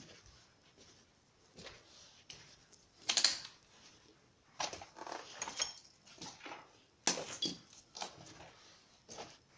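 Footsteps crunching and scraping over rubble and broken debris on a floor, with small clinks of glass or loose bits underfoot, in uneven steps a second or two apart.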